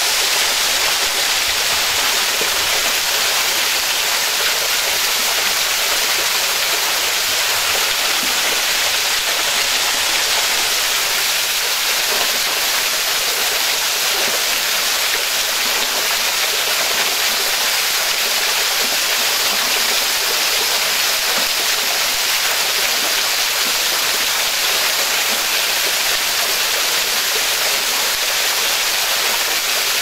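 Waterfall pouring down a rock face and splashing into a rocky pool: a steady, unbroken rush of water.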